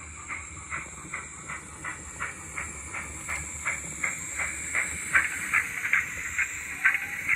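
Model steam locomotive chuffing at a slow, even beat of about two and a half exhausts a second, each a short hissing puff, over a steady high hiss. The chuffs grow louder as the engine draws near.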